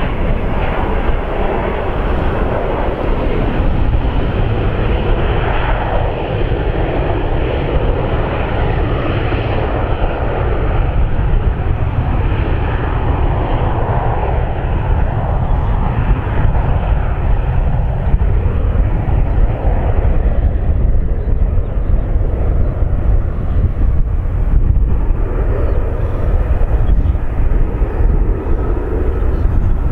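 Boeing 737-800's CFM56 jet engines running as the airliner taxis: a steady jet rumble and hiss whose higher part fades from about twenty seconds in as it moves away.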